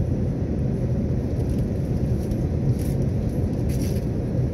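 Steady low rumble of airliner cabin noise inside an Airbus A380 in flight: engine and airflow noise heard from a seat in the cabin.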